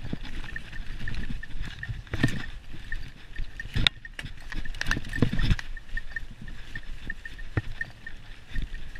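Mountain bike ridden fast along a leaf-covered dirt trail: a steady rush of tyres on leaves and dirt with low rumble, broken by frequent sharp knocks and rattles as the bike hits bumps. A regular high ticking runs underneath.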